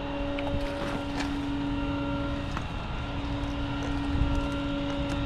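A vehicle idling nearby: a steady engine hum with a constant whine, and a few faint clicks.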